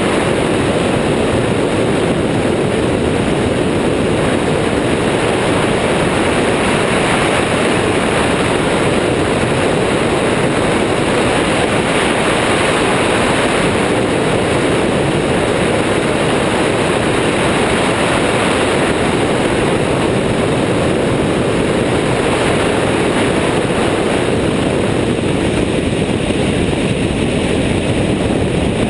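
Steady in-flight noise of an Airborne XT Tundra ultralight trike: its engine and pusher propeller running, blended with wind rushing over the microphone of the wing-mounted camera.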